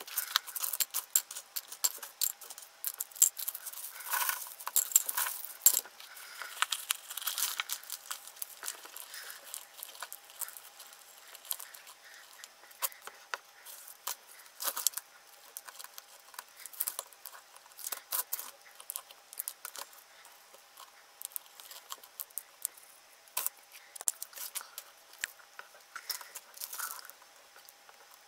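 Potting soil crunching and rustling as small sedum plants are pressed into a glazed ceramic pot by fingers and a bamboo stick, with scattered sharp clicks and taps. These are thickest in the first several seconds and sparser later.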